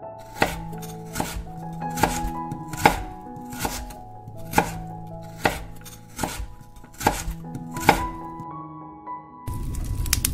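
Kitchen knife chopping tomatoes on a wooden cutting board, a dozen or so slow, even chops about one every 0.8 seconds. Near the end a steady hiss and crackle begins: fish sizzling in a wire grill basket over charcoal.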